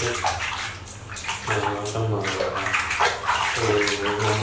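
Water splashing and dripping in a plastic basin as a hand scoops water over a baby monkey during its bath, with a low human voice heard at times.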